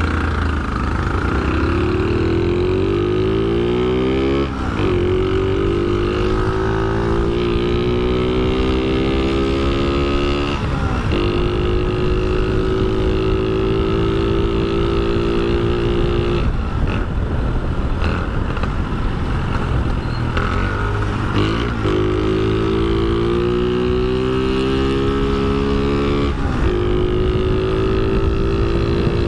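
Shineray Phoenix 50 cc scooter's single-cylinder engine heard from the rider's seat, its pitch rising as it accelerates away and then holding steady at cruising speed. It dips briefly several times as the throttle is eased, then climbs again about two thirds of the way through.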